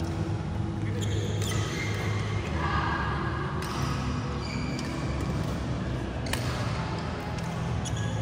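Badminton rally: several sharp pops of rackets striking a shuttlecock, irregularly a second or more apart, over a steady background din in a large hall.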